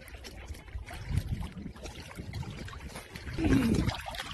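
Water sloshing and lapping with a low steady rumble as a cat swims in open water, and a short falling cry about three and a half seconds in.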